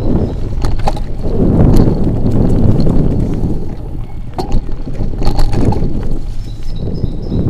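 Wind noise on a handlebar-mounted action camera's microphone as a mountain bike rides a dirt trail. The rumble from wind and tyres comes and goes in waves, and several sharp clicks and rattles from the bike come over bumps.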